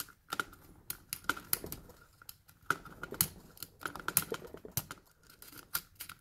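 Light metallic clicks and taps from a small brass-and-steel lock cylinder being handled and worked apart by hand, coming irregularly, a few a second.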